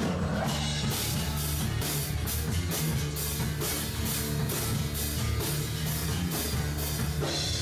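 Acoustic metal band playing: acoustic guitar and bass guitar over a full drum kit, with a steady, even pulse of drum and cymbal hits.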